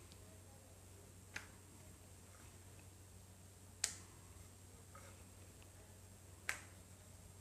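Three short sharp taps on a granite countertop, about two and a half seconds apart, as a stuffed paratha is rolled out with a wooden rolling pin and turned by hand, over a faint low hum.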